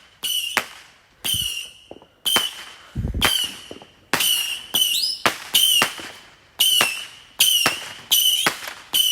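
Multi-shot consumer firework box firing a rapid string of shots, about one and a half a second, each a sharp pop with a short high whistle. One deeper thump comes about three seconds in.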